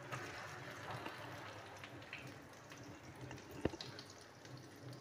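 Oil sizzling softly in a frying pan around shami kababs and an egg, with one light tap a little past halfway.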